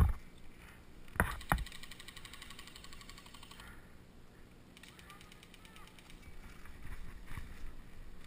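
Airsoft skirmish: two sharp knocks a little over a second in, followed by a fast, even rattle of full-auto airsoft fire lasting about two seconds. A fainter rattle of airsoft fire returns in the second half.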